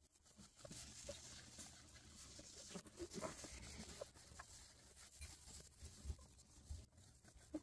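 Faint rustling and scratching of newborn bloodhound puppies and their mother shifting in wood-shaving bedding while the puppies nurse, with small scattered clicks.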